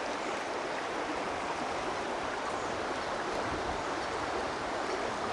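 Steady rushing noise like running water, even and unbroken.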